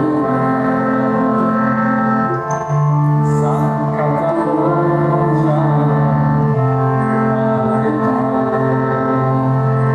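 Kirtan: devotional chanting sung over the held chords of a harmonium, the chords shifting every few seconds.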